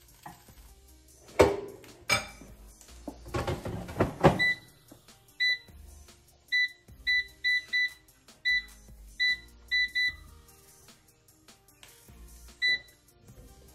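Metal tongs clattering and knocking against a Power XL Vortex air fryer's basket, then about eleven short, high electronic beeps as the air fryer's touch panel is pressed to set the cooking time for a second 12-minute run.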